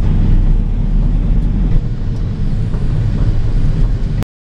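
Steady engine and road rumble heard from inside a moving vehicle, cutting off abruptly near the end.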